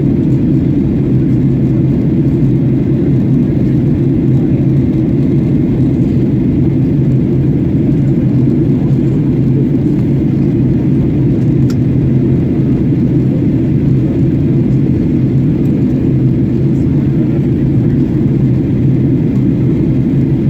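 Steady cabin drone of a Boeing 737-800 airliner in flight: engine and airflow noise heard from inside the passenger cabin, even and low-pitched.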